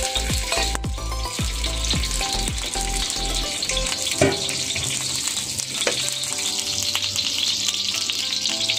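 Garlic cloves frying in hot oil in a wok, a steady sizzle. Two sharp clicks stand out, about four and six seconds in.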